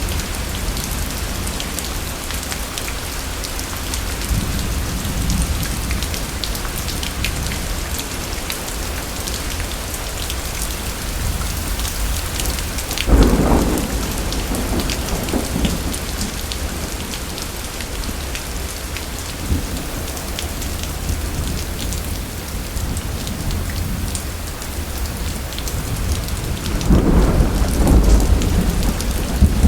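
Thunderstorm: steady rain with thunder. A sharp thunderclap about thirteen seconds in trails off into rumbling, and a longer, heavier rumble builds near the end.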